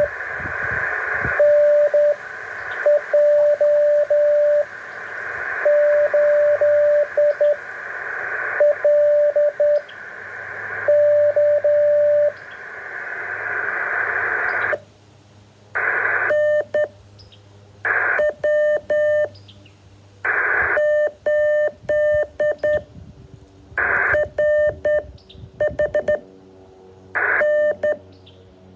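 Morse code received on a radio: a single beeping tone keyed in dots and dashes over band hiss that swells between characters. About halfway through the hiss drops away, and the tone comes in short groups, each starting with a brief burst of static.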